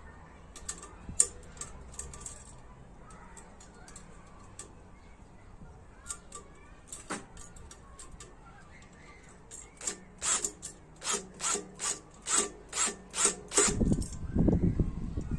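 Cordless drill working a bolt on a mesh drum compost spreader: a series of short strokes, about two to three a second, starting about ten seconds in, then the drill running continuously near the end, louder.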